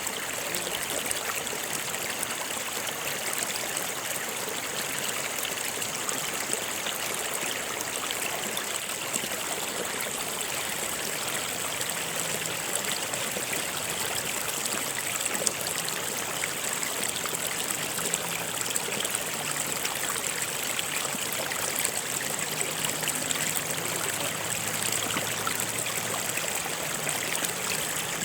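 Stream running steadily, an even rush of flowing water with trickling.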